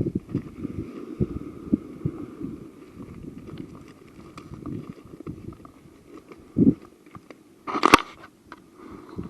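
Handling noises: scattered light clicks and knocks, a dull thud about six and a half seconds in, and a brief, sharper crackling burst, the loudest sound, near the end.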